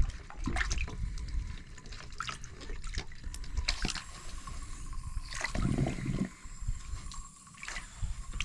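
Water dribbling and gurgling at a stock water trough's non-return valve, with irregular drips and small splashes. The valve sounds like it is leaking a bit and sucking air.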